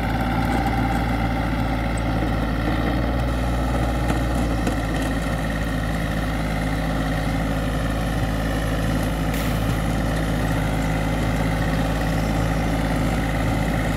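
Yanmar F200 compact tractor's diesel engine running steadily under load as it drives a rear rotary tiller through the soil.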